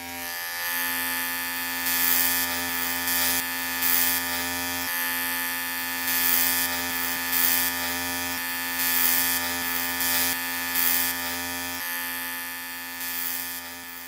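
Electric hair clippers running with a steady buzz, broken by about ten short, louder rasping passes as the blades cut through hair.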